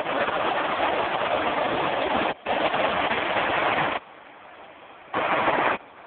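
Steady rush of falling water from the artificial cascades. It breaks off briefly just after 2 s, cuts out abruptly about 4 s in, and returns for a moment near the end.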